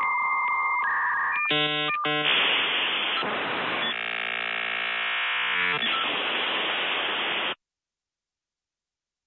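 Dial-up modem handshake sound: a steady tone, two short bursts of stacked tones, then a long harsh hiss with a buzzy stretch in the middle. It cuts off suddenly about seven and a half seconds in.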